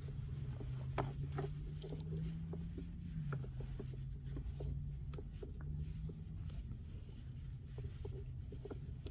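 A magnetic charging cable being wrapped back into a coil by hand: faint scattered clicks and rubbing over a steady low hum.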